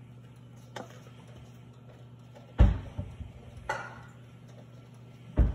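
Cookware being handled on a stovetop: a light click, then a few knocks and two heavier low thumps as pots and pans are moved and set down. A steady low hum runs underneath.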